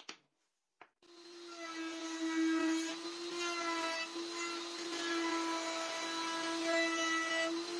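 Two clicks, then a small motor starts about a second in and runs at a steady pitch.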